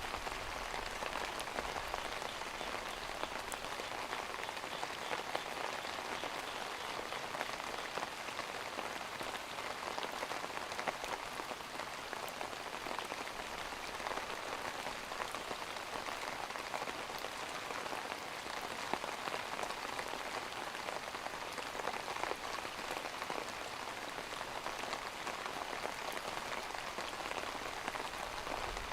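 Steady rain falling, a dense even patter with a few louder single drops standing out.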